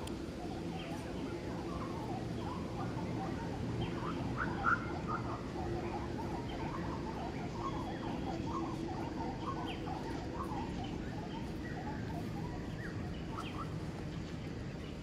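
Outdoor bird chatter: many short chirps a second from small birds over a steady low hum, with one brief louder sound a little under five seconds in.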